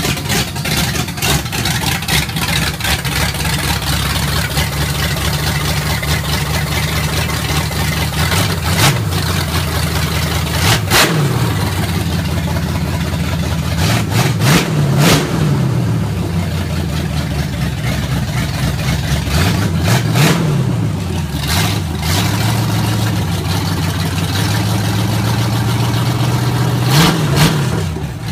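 Ford 302 small-block V8 running on an engine run stand with no exhaust fitted. It holds a steady idle, broken by several brief throttle blips that push the revs up and let them fall back.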